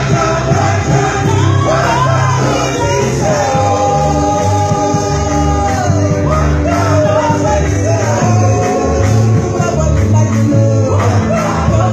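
Woman singing into a microphone in a Ghanaian language over loud amplified backing music with a heavy bass beat; she holds one long note from about three seconds in to about six seconds.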